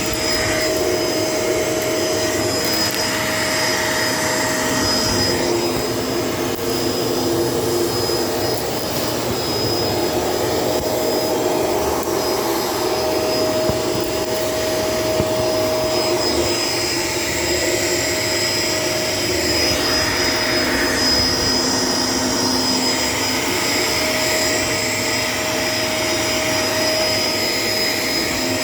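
Shark LA702 Lift-Away upright vacuum running with its power head, a steady motor whine over rushing airflow, its tone shifting slightly now and then as it is pushed over the floor.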